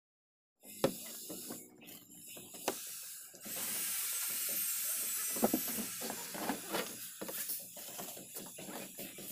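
Steel mason's trowel scraping and tapping on wet cement mortar and concrete, shaping a mortar moulding along a beam edge. It starts after about half a second of silence and comes as a run of short, irregular rasping scrapes and clicks. From about three and a half seconds in there is a louder steady hiss for a couple of seconds.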